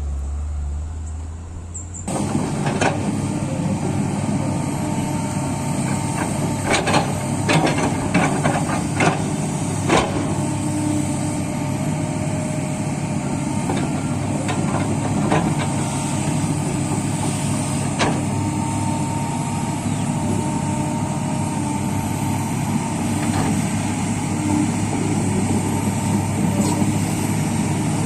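Heavy diesel machinery running steadily, coming in abruptly about two seconds in. Several sharp knocks are heard between about three and ten seconds in, and another near the middle.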